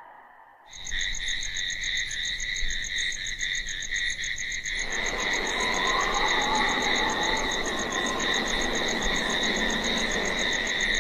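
Night-time ambience sound effect: a steady, high, rapidly pulsing trill of frogs or insects starts just under a second in, and a hiss like wind joins it about five seconds in.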